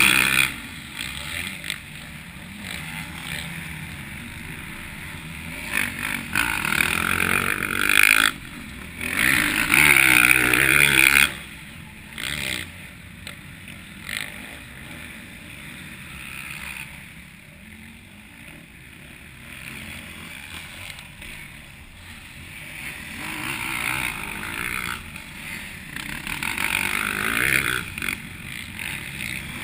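Motocross bike engines revving on the track, swelling and fading in surges as bikes pass, loudest about a third of the way in and building again near the end as a bike approaches.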